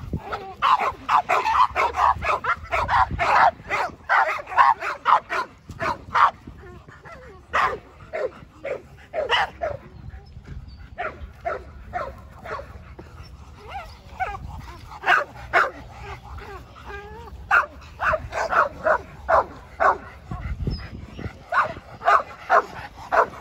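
American Pit Bull Terriers barking in quick, repeated barks. The barks are dense at first, thin out in the middle, and come thick again near the end.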